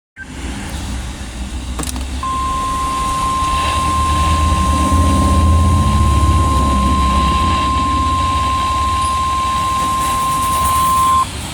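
NOAA Weather Radio 1050 Hz tone alert sounding during a routine test of the alert system: one steady high tone that starts about two seconds in and cuts off sharply near the end, over a loud low rumble.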